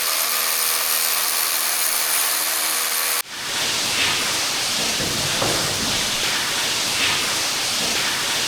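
Power drill running steadily with a motor whine, boring a bolt hole in rock. About three seconds in it cuts abruptly to a steady rushing hiss.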